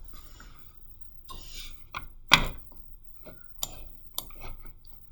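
Scattered clicks and taps of a computer mouse and keyboard, about seven in all, with one louder click about two and a half seconds in.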